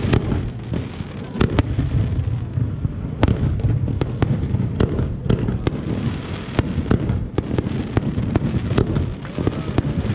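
Fireworks display: a rapid, continuous barrage of sharp bangs and crackles over a dense low rumble of overlapping booms.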